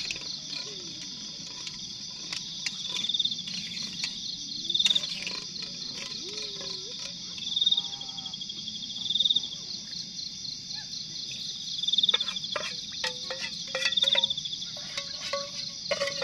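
Night insects calling: a steady high-pitched trill, with a louder pulsing call every one to three seconds. Light clinks and scrapes of a spoon in a metal cooking pot come now and then, more often in the second half.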